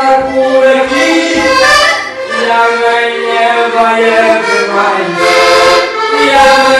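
Button accordion playing a traditional Portuguese desgarrada tune, a melody over held chords.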